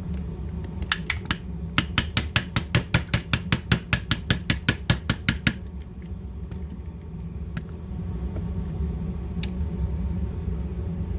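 Rapid run of sharp, evenly spaced ratchet-like clicks, about five a second for roughly four seconds, from a hand tool working a pistol's grip screw loose, then a few faint scattered clicks over a steady low hum.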